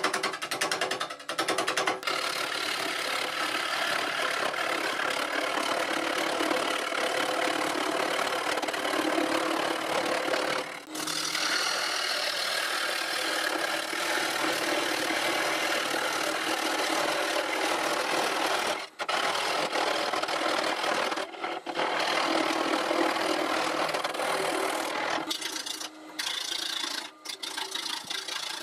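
A gouge cutting into a spinning spalted ash bowl blank on a wood lathe: a steady scraping cut as shavings come off. It breaks off briefly a few times when the tool is lifted, and becomes choppy with short cuts near the end.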